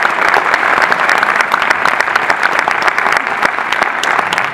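Cinema audience applauding: a dense, steady round of many people clapping.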